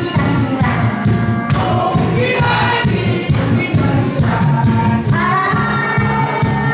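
A woman singing a Korean trot song into a microphone over a backing track with a steady beat.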